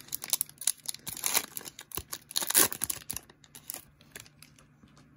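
Foil trading-card pack wrapper crinkling and being torn open: a rapid run of crackles and rips over the first three seconds, then a few faint clicks.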